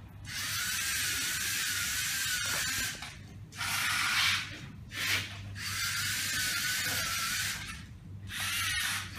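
LEGO Mindstorms NXT robot's servo motors and gears whirring as it is driven by remote control, in runs of one to three seconds that start and stop, with a wavering whine over the gear noise.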